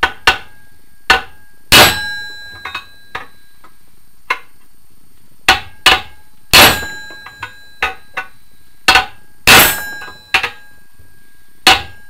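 Hammer blows on a soft iron drift and crank assembly tool, knocking the halves of a Scott two-stroke motorcycle crank together through the flywheel. Lighter taps fall between three heavy blows, at about 2, 6.5 and 9.5 seconds in, and each heavy blow rings on for about a second. The speaker expects this ringing once the crank is knocked up tight.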